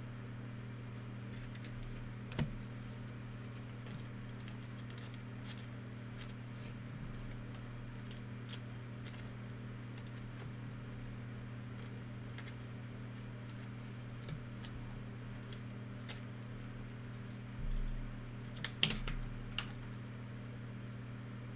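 Football trading cards and packs being handled, with scattered light clicks and rustles and a louder run of clicks near the end, over a steady low hum.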